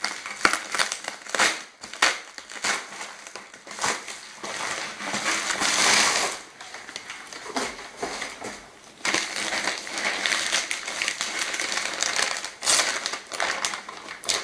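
Plastic mail-order packaging being opened and handled: crinkly plastic bags rustling and crackling with many sharp clicks, with a louder, longer stretch about six seconds in.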